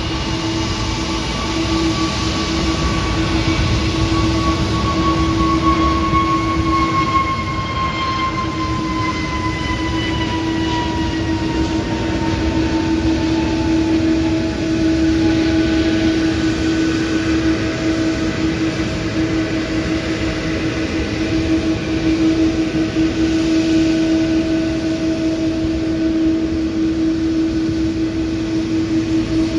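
Jet airliner engines whining at taxi power as the aircraft rolls past: a steady low hum under a steady whine, with a higher tone falling slowly in pitch through the first ten seconds.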